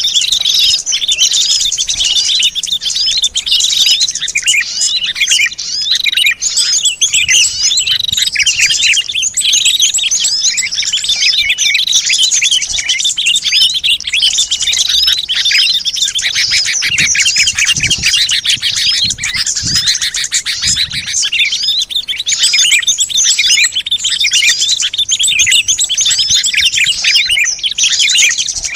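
Dense chorus of many small songbirds chirping and twittering at once, with rapid high calls overlapping without a pause. It is a recorded bird-luring track played to draw wild small birds in.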